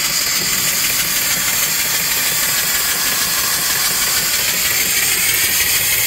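Steady hiss of escaping steam from a wood-fired vertical steam boiler and its running steam engine.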